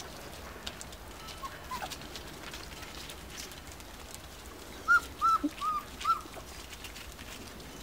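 Four-week-old Finnish Lapphund puppies squeaking: two faint squeaks about a second and a half in, then a quick run of four short high yelps near the end.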